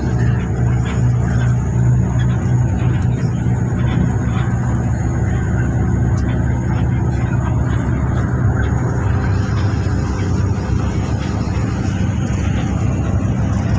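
Steady drone of a coach bus on the move, heard from inside the passenger cabin: a constant low engine hum over road noise.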